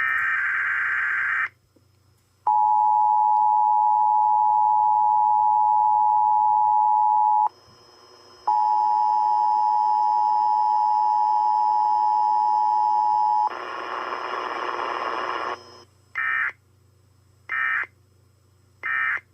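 Emergency Alert System test tones off a radio: a data-header burst ends, then the two-tone attention signal sounds steadily for about five seconds, breaks off for a second and resumes for five more. After a couple of seconds of rushing noise come three short end-of-message data bursts.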